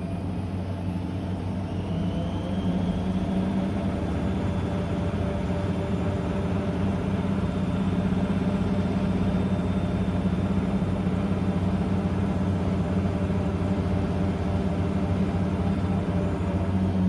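Blomberg WA391 washing machine spinning at high speed: the motor whine rises in pitch and the level climbs over the first few seconds, then the drum holds a steady high spin with a deep hum.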